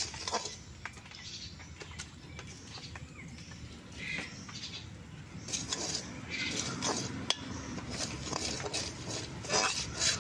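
Metal spatula scraping and stirring dry semolina around a metal kadai, with irregular scrapes and light clinks against the pan, busier in the second half. The semolina is being dry-roasted in the hot pan.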